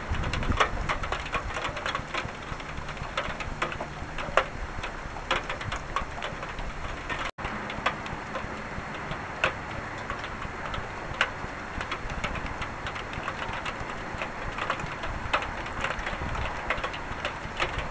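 Rain during a weak thunderstorm, with many irregular drops ticking sharply on a hard surface close by over a steady hiss. The sound cuts out for an instant about seven seconds in.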